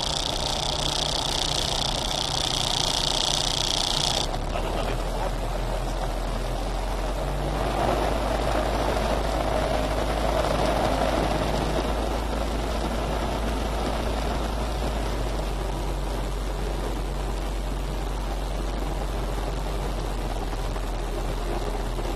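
Diamond HK36 Super Dimona motorglider's engine and propeller running steadily, heard as a constant low drone inside the cockpit. A high hiss over it stops abruptly about four seconds in.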